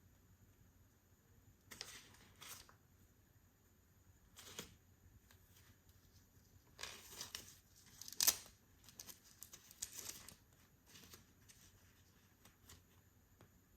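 Hands unwrapping miniature toy furniture: intermittent rustling and tearing of packaging in short bursts, with one sharper crackle a little past the middle.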